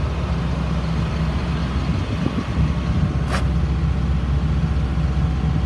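School bus engine idling steadily with a low, even rumble, with one brief high hiss about three seconds in.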